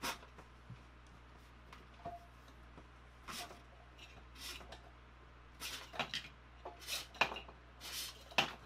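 A new insulated wire being pulled into an electrical cabinet, dragging and brushing against the other cables and the enclosure in a string of short, irregular rustles and scrapes that come closer together in the second half.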